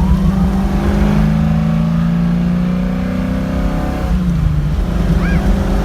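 1968 Ford Mustang's engine running hard under acceleration, its note dropping in pitch about four seconds in.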